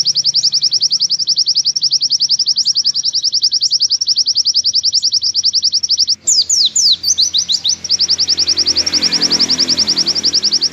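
White-eye (pleci) singing a long, fast trill of high sliding notes, many to the second. About six seconds in, it breaks into a few slower notes, then the fast trill runs on.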